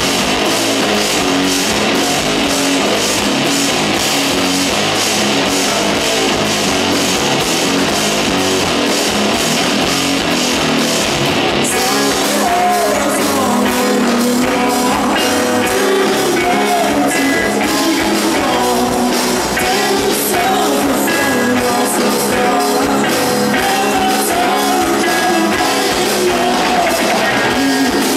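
Rock band playing live and loud: electric guitar, bass and drums with steady cymbal hits. About twelve seconds in the cymbals drop away and a man's singing comes in over the band.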